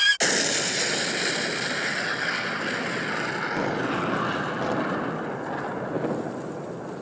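Explosion sound effect: a sudden blast that carries on as a long noisy rumble, slowly fading over several seconds.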